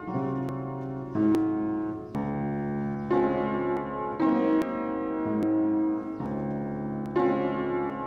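Kawai upright piano played slowly: held chords, a new one struck about once a second.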